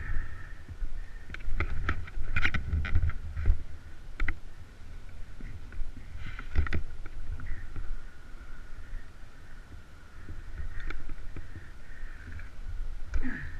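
Wind rumbling on a helmet-mounted camera, with scattered knocks and clatter as the rider steps over rocky ground and handles a fallen enduro motorcycle.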